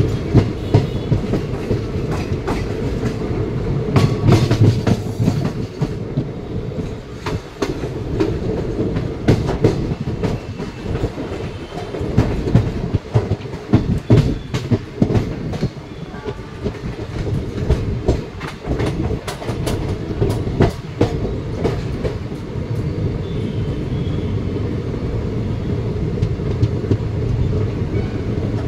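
Passenger train coach running on the rails, heard from its doorway: a steady rumble with the clickety-clack of wheels over rail joints and points, coming in irregular clusters of sharp clicks.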